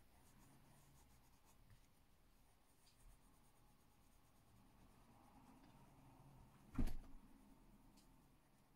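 Faint scratching of a coloured pencil shading on paper, with a single soft knock nearly seven seconds in.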